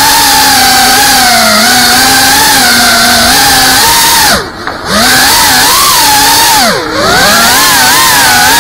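FPV racing quadcopter's motors whining, the pitch wavering with the throttle. The throttle is cut twice, about four and a half seconds in and again near seven seconds: the whine sweeps down and drops away briefly before climbing back.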